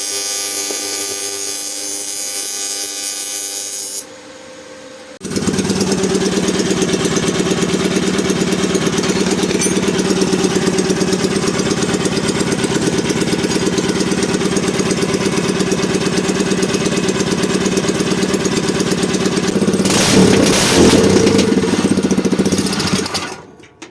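A steady machine hum for about four seconds. Then, about five seconds in, a GX200-clone single-cylinder four-stroke engine starts and runs steadily. It gets louder briefly near the end and then stops just before the end.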